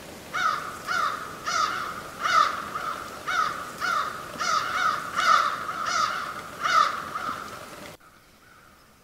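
Crow cawing over and over, about two caws a second, cutting off suddenly near the end.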